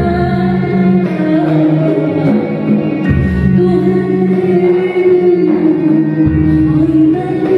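Live Arabic song: a woman singing long held notes over oud, violin, cello and electric guitar, with the low notes changing about every three seconds.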